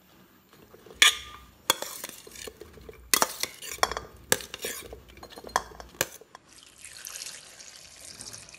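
A steel ladle clatters against the rim and sides of a pressure cooker as chunks of cut vegetables are spooned in on top of the dal, in a run of sharp clinks and knocks, the loudest about a second in. For the last couple of seconds this gives way to a softer steady hiss.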